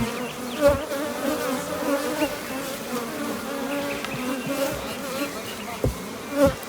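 Honeybees buzzing in a steady mass as butyric acid fumes from fume boards drive them out of the honey boxes. A few low thumps, two of them near the end.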